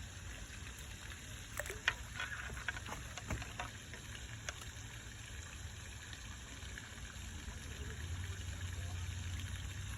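Faint outdoor background by the water: a steady low rumble that grows a little louder near the end, with a few light clicks and ticks around two to three seconds in.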